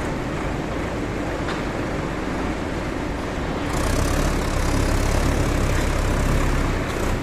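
Solis 6024 tractor's diesel engine running as the tractor drives and works its front loader. The engine grows louder about four seconds in, and a rushing hiss joins it.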